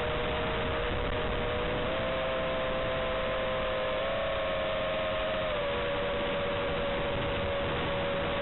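FPV quadcopter's motors and propellers whining in flight, two close steady tones that step up slightly about two and four seconds in and drop back a little past halfway as the throttle changes, over a steady hiss.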